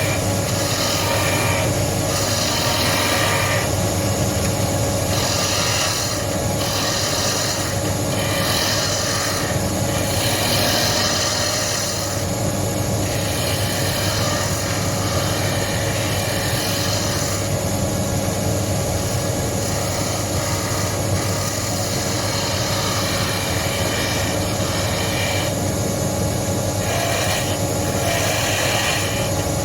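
Wood lathe running with a steady hum while a turning tool cuts a spindle leg, the cutting noise coming and going in spells every second or two.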